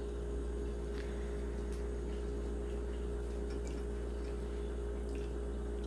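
Quiet kitchen room tone: a steady electrical hum with a faint even crackle and a few soft ticks.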